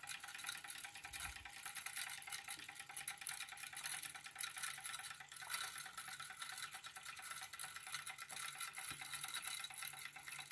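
Jensen #65EL toy live steam engine running under steam: a fast, even patter of soft ticks with a light hiss of exhaust steam.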